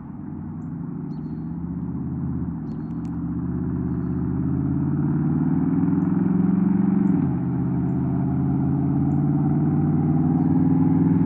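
Chevrolet Tahoe with a true dual cat-back exhaust accelerating hard toward the listener, its engine note rising through the gears and getting louder as it comes. The pitch drops for an upshift about two and a half seconds in and again about seven seconds in.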